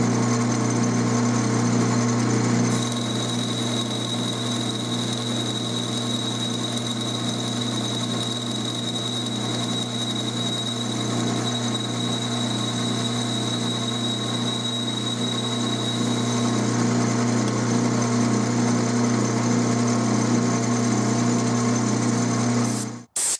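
12-inch Atlas lathe running, its drive humming steadily with a fast even pulsing, while a boring bar takes a single pass to final size inside an interrupted bore in the spinning part. A thin high steady whine comes in about three seconds in and stops a few seconds past the middle. The lathe's sound cuts off near the end.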